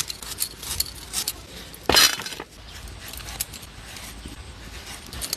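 Kitchenware clinking and clicking: a few light clicks, then one louder ringing clink about two seconds in.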